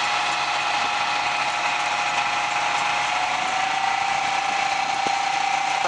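Combine harvester running, a steady mechanical whine over a dense machine noise, its pitch edging up slightly about three and a half seconds in.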